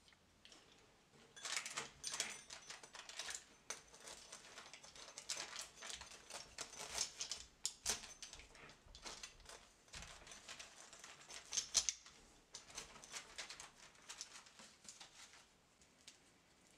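Pizza cutter wheel rolling through the crisp baked crust of a cheese-topped stuffed flatbread: runs of crunchy crackles and clicks with each stroke. The cutting starts about a second in and stops shortly before the end.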